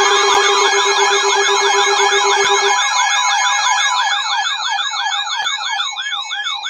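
Electronic alert alarms sounding together, as weather-alert receivers do for a tornado warning: several siren-like tones sweeping up and down about four times a second, with a steady lower tone that stops about three seconds in. The alarms cut off suddenly at the end.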